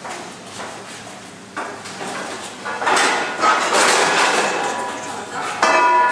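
Commercial kitchen clatter and bustle, with a dense rush of noise in the middle and a ringing tone starting near the end.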